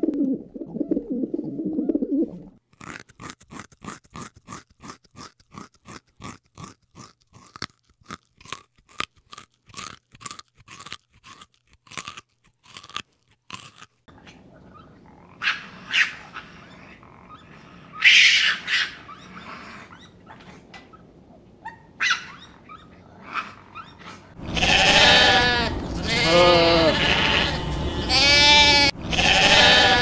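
A string of animal sounds: low cooing for the first two seconds, then a long run of quick sharp clicks, then a few short high calls, and loud bleating over the last five seconds.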